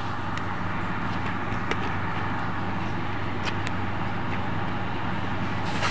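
Steady background noise, a low hum under an even hiss, with a few faint ticks.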